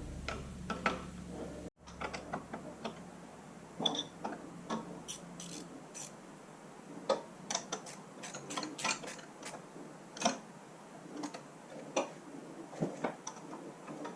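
Ratchet wrench clicking in short, irregular spells, with metal tools clinking, as bolts on the rear crankshaft seal housing are tightened.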